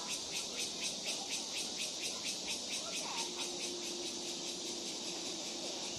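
Insects chirping in a fast, even pulse, about four chirps a second, which smooths into a steady high drone later on; a faint steady low hum comes in about three seconds in.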